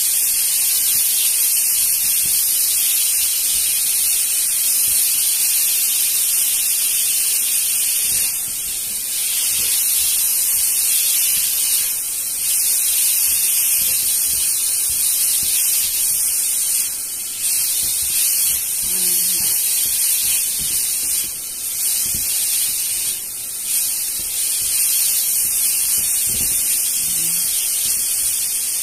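Sliced meat and garlic sizzling in hot oil in a wok as they are stir-fried: a steady high hiss that dips briefly several times, with a few light knocks.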